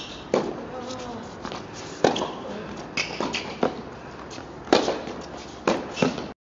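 A tennis rally on a hard court: sharp pops of racket strings hitting the ball, and the ball bouncing, roughly a second apart, about eight in all. The sound cuts off abruptly near the end.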